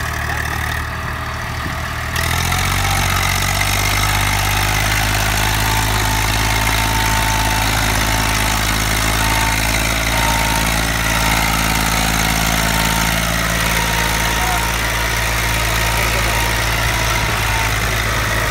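Eicher 333 tractor's three-cylinder diesel engine running steadily under load, hauling a heavily loaded trolley. It gets louder about two seconds in and then holds steady.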